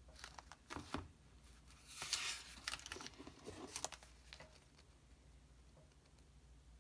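Paper page of an old booklet being turned: a few light clicks, then a papery rustle about two seconds in, with scattered ticks fading out soon after.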